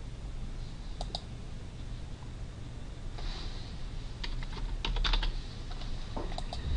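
Typing on a computer keyboard: scattered keystroke clicks, a pair about a second in and a quick run of them around four to five seconds in, over a low steady hum.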